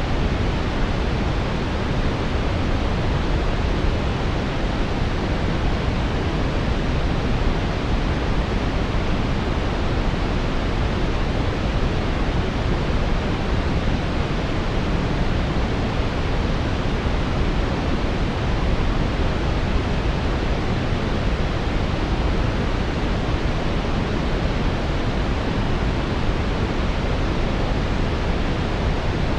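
Steady brown noise: an even, deep hiss weighted toward the low end, with no change in level or texture.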